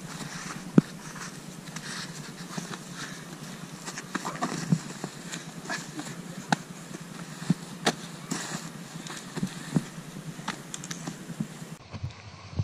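Two people scuffling and wrestling on grass: irregular short knocks and rustles of bodies and clothing against the ground, over a steady hiss.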